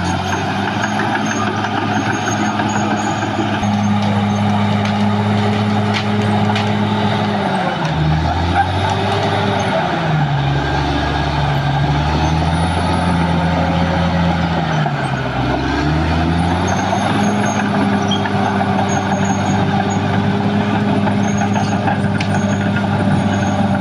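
Caterpillar D6R XL bulldozer's diesel engine running hard. Its pitch sags about eight seconds in, dips again around fifteen seconds, and each time climbs back to a steady level.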